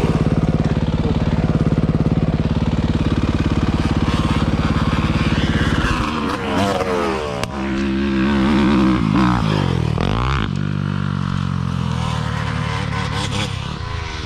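Dirt bike engine running at a steady pitch for about six seconds, then revving up and down several times, its pitch rising and falling.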